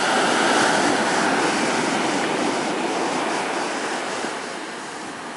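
Ocean surf: waves breaking and foam washing in, a loud steady rush that slowly fades toward the end.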